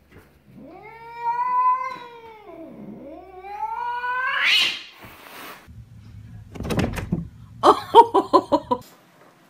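Domestic cat giving one long drawn-out meow-yowl that rises, holds, sags and then climbs high again over about four seconds. Near the end comes a separate short burst of about six quick sharp pulsed sounds in a second, the loudest part.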